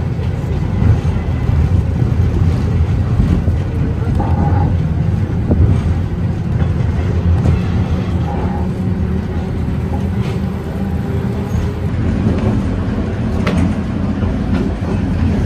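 Historic tram running along its rails, heard from aboard: a steady low rumble with a few short clicks and rattles.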